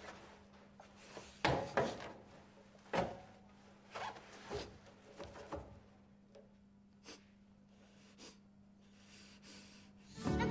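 A few short muffled grunts and nasal breaths from a girl gagged with tape, with cloth rubbing and rustling as she shifts on the floor, mostly in the first half. A faint steady hum sits underneath.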